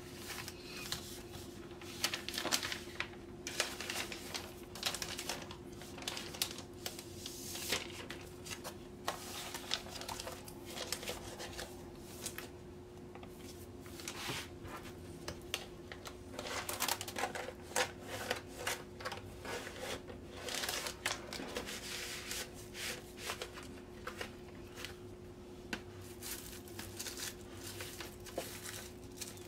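Plastic record sleeves and the shrink-wrap on a vinyl LP jacket being handled: irregular crinkling and rustling, over a steady low hum.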